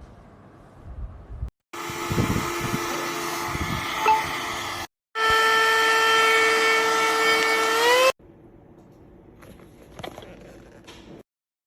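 Handheld cordless mini vacuum cleaner running: a steady motor whine with rushing air, heard in two spliced stretches, the second louder, its pitch rising slightly just before it cuts off abruptly.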